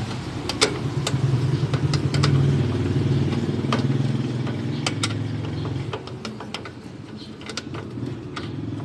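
A motorcycle engine running steadily, easing off after about six seconds, with scattered light clicks and taps on top.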